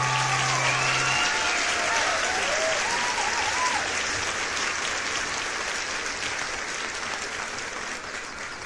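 Applause from a group, with a few short cheers early on over the band's last held chord, which stops about a second in; the clapping fades away toward the end.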